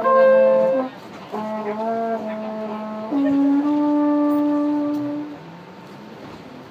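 Trombone playing a slow phrase of sustained notes, the last one held for about two seconds before it stops about five seconds in. Subway car running noise fills the rest.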